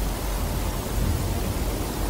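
Steady, even hiss with a low, uneven rumble underneath, picked up by a camera left recording in an empty stone room; no distinct event stands out.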